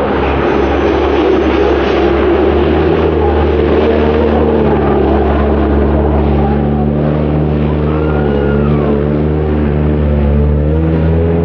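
Rally car engine running at an almost constant pitch, its note wavering slightly over the last few seconds.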